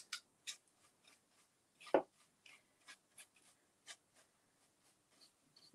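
Bristles of a paintbrush dry-brushing a metal file cabinet's drawer hardware: short, irregular scratchy strokes, with one louder knock about two seconds in.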